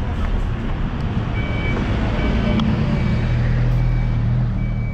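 Road traffic with a vehicle engine running close by, its rumble swelling in the middle. A short electronic beep repeats about once a second, starting just over a second in.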